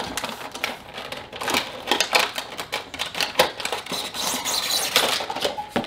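A small cardboard gift box and its plastic wrapping being opened and handled by hand: a continuous run of crinkles and sharp little clicks.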